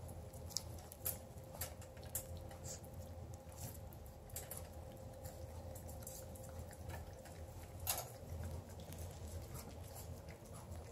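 A puppy gnawing on a chew stick: scattered light clicks and taps, the sharpest about eight seconds in, over a faint steady hum.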